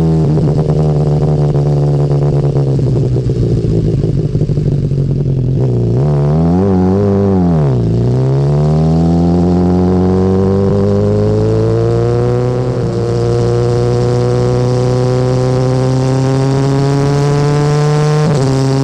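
BMW S1000R inline-four running through its stock Akrapovic exhaust while being ridden. The engine note swells and drops sharply about six to eight seconds in, then climbs steadily as the bike accelerates, with a brief dip near the end.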